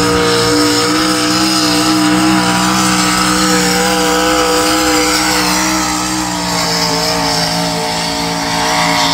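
Pulling tractor's engine running flat out at steady high revs during a pass down a tractor-pull track, its pitch sagging slightly about six seconds in and picking up again near the end.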